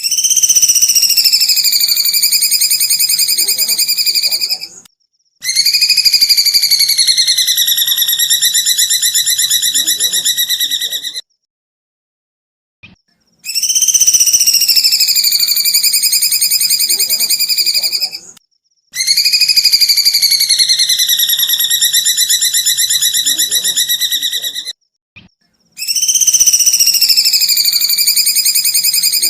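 A cage songbird's long, very fast buzzing trill, sung in phrases of about five seconds each with short silent gaps between them. Each phrase dips slightly in pitch at the start and then holds steady, and the phrases are nearly identical, as in a looped training recording.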